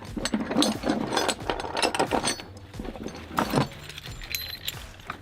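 Ratchet strap being worked by hand, its ratchet mechanism clicking in a quick, irregular series with metallic clattering.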